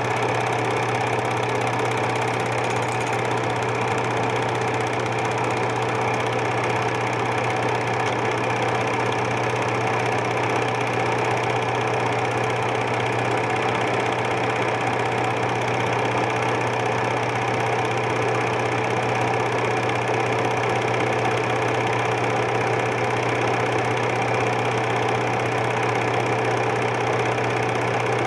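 Super 8 film projector running: a steady mechanical whirr of its motor and film transport over a low hum.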